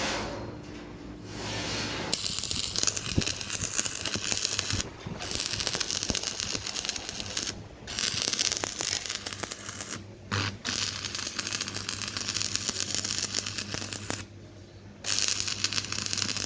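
Electric arc welding on angle iron and rebar: the arc crackling in runs of a few seconds, broken by several short pauses, over a steady low hum.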